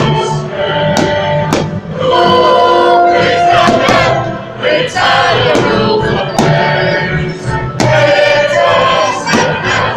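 Music with choir-like singing and long held notes, crossed by sharp hits about every second.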